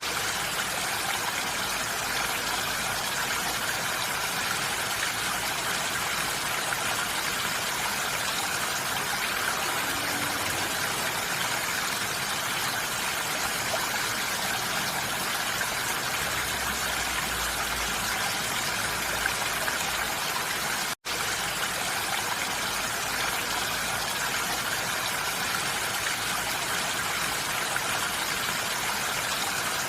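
Steady rain falling on a roof, an even hiss of many drops with no single hits standing out. The sound cuts out completely for a split second about two-thirds of the way through, then resumes unchanged.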